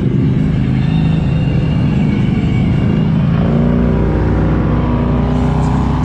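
Polaris Sportsman 850 ATV's twin-cylinder engine running, its pitch shifting up and down a little with the throttle.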